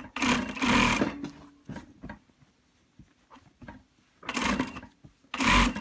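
Industrial sewing machine stitching in short bursts. One run at the start lasts about a second, then comes a quiet gap of about three seconds with a few faint ticks, then two more short runs near the end.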